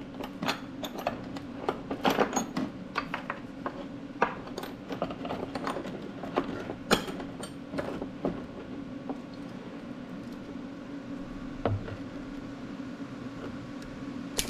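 Steel chain links clinking against each other and against a steel workbench as the chain is handled and laid out, many clinks over the first several seconds and only a few after that, over a steady low hum.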